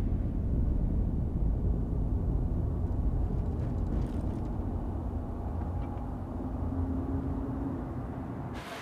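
Steady low rumble of road and engine noise heard inside a moving car's cabin, with a faint hum. It drops away suddenly just before the end.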